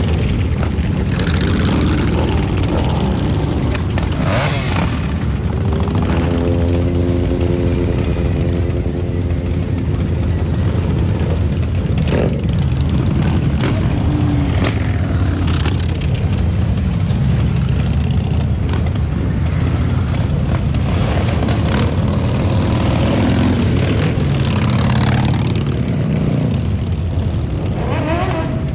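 Many motorcycle engines running together, riders revving them again and again. A long steady tone, like a horn, sounds for about four seconds a few seconds in.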